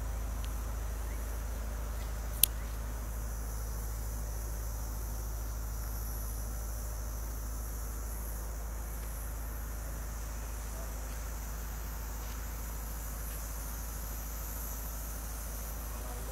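Steady ambient background of a low hum under a high, continuous chirring of crickets, with a single sharp click about two and a half seconds in.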